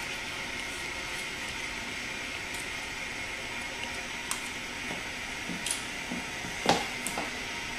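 Steady background hiss with a few short clicks and taps in the second half, the sharpest about two-thirds of the way through.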